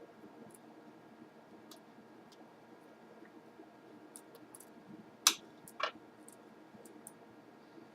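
Light scattered clicks and ticks of a small Phillips screwdriver working out the laptop's hinge-cover screws, with two sharper clicks about half a second apart a little past halfway.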